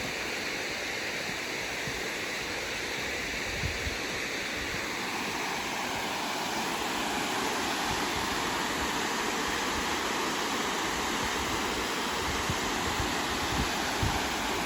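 Water pouring over a lake spillway, a steady rush that grows fuller about halfway through, with a few small low bumps.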